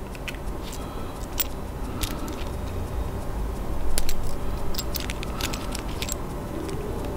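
Needle-nose pliers and thin stainless steel lure wire clicking and ticking irregularly as the wire is wrapped around a spinner's shaft, with a louder cluster of clicks about four seconds in, over a low rumble.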